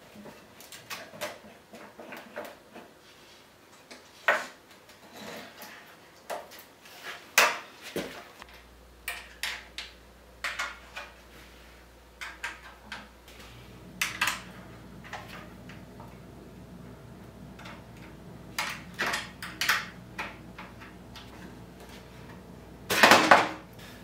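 Scattered clicks, knocks and clatter of a strap-type framing clamp being released and its corner pieces pulled off a glued wooden frame. A louder clatter comes near the end as the frame is handled, and a low steady hum comes in about eight seconds in.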